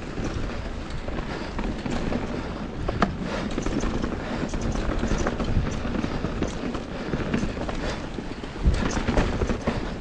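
Mountain bike on Michelin Wild Enduro tyres descending a loose, rocky trail: tyres crunching over gravel and rock, with the bike rattling and clattering over bumps and steady wind rumble on the camera mic. A harder jolt comes near the end.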